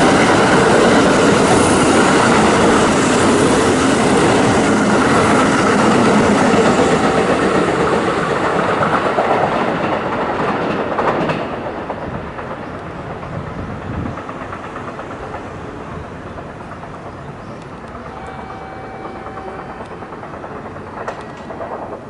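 Kintetsu train running on the rails with a clickety-clack of wheels over the joints, loud for about the first half, then dropping away after a sharp click about eleven seconds in, leaving a quieter rumble.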